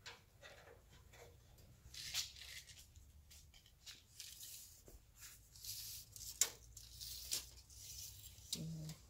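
Tape measure being handled and its blade run out, with intermittent scraping and rustling and one sharp click about six and a half seconds in.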